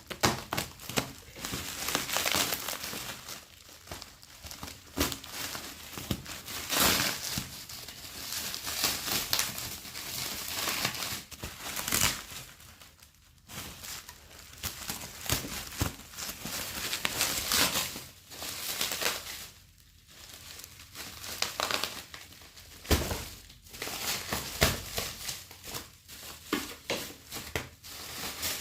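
Keyboard-and-mouse packaging being opened by hand: irregular crinkling and rustling of the wrapping and box, with short scrapes and handling noises.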